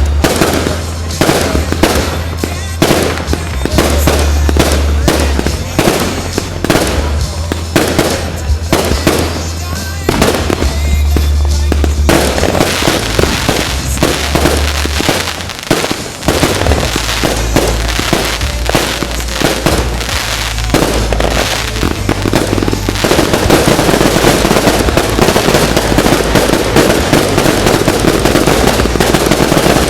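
Fireworks going off in rapid succession, many sharp bangs close together, building into a dense, near-continuous barrage about two-thirds of the way through.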